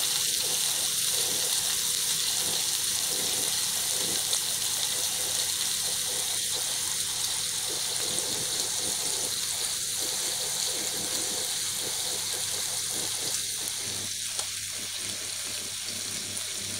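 Pork pieces sizzling as they fry in a little groundnut oil in a frying pan: a steady hiss with faint crackles, getting a little quieter toward the end.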